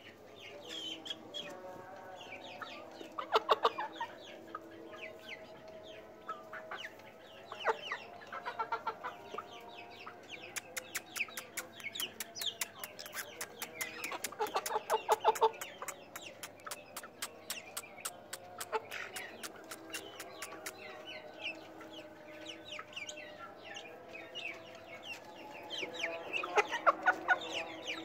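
Young Light Sussex chickens clucking and calling in short bursts while feeding, with a run of quick light ticks through the middle.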